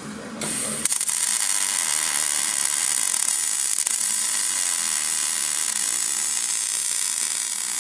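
MIG welder arc crackling steadily as a bead is run on the steel axle truss plates, starting about half a second in.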